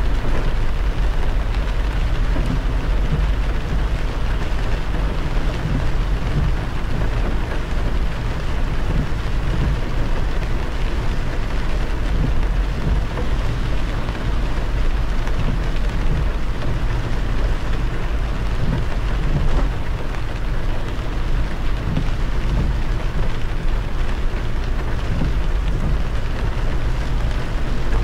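A car driving on a wet expressway in the rain: steady tyre and road noise with a deep rumble underneath and the hiss of rain and spray.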